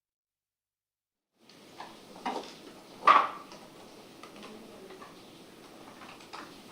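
Dead silence for about a second and a half, then a few sharp knocks and clatters of tableware handled at a table, the loudest about three seconds in, over quiet room tone.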